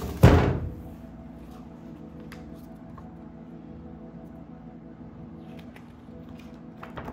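Plastic-wrapped baking tray put down in its box: a short loud rustle and knock a moment in. After that there are only a few faint taps and paper rustles as a booklet is handled.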